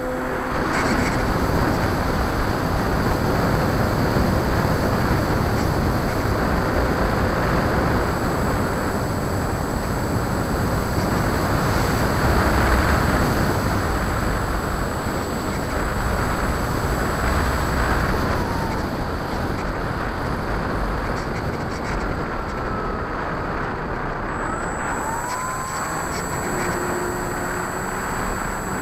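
Radio-controlled model airplane in flight, heard from its onboard camera: a steady rush of wind over the microphone with the propeller running. The noise is a little louder in the first half and eases off gently later on.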